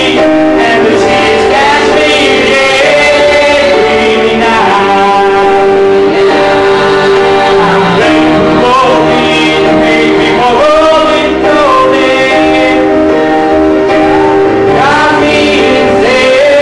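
Male voices singing a musical-theatre song into microphones over an instrumental accompaniment, with held notes and sliding pitches.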